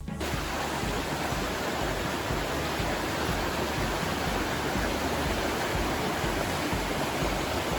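Steady rushing of a small, turbulent river swollen and muddy with spring snowmelt. The sound stops abruptly at the end.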